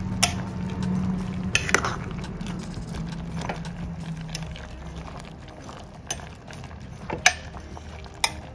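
Metal spoon stirring cooked watermelon rind pieces in an aluminium pot, with about six sharp clinks of spoon against the pot over a steady low simmering sound that fades about halfway through.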